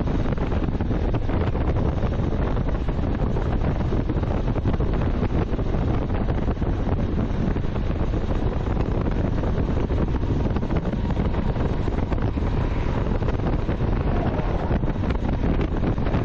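Steady wind rush buffeting the microphone of a motorcycle, a Honda CTX700N, riding at road speed, with the bike's running and road noise buried beneath it.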